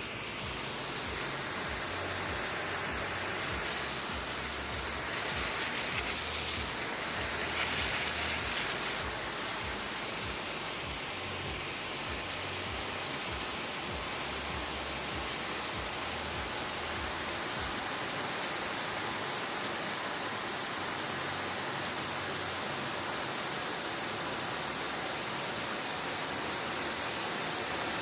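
Water spraying onto a lawn grass during watering: a steady hiss of spray that swells a little between about five and nine seconds in.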